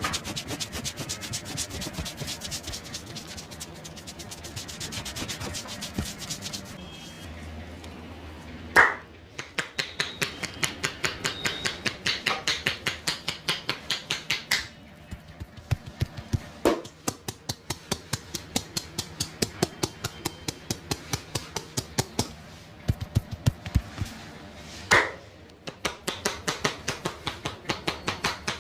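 A barber's hands rubbing and then striking rhythmically on a person's head and shoulders during an Indian head massage. The quick percussive strokes come in runs of about five a second, broken by short pauses, with two single loud smacks.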